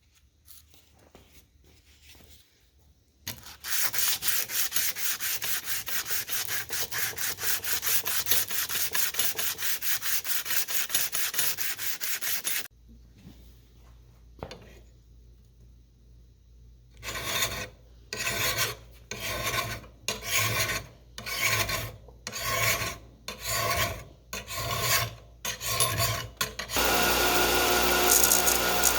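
Fast, even back-and-forth rubbing strokes, about five a second, for several seconds. After a pause over a low hum come slower single strokes about a second apart. Near the end a steady machine-like noise starts.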